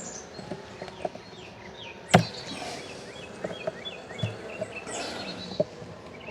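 Honeybees humming steadily around an open hive, with scattered clicks and knocks, the sharpest about two seconds in.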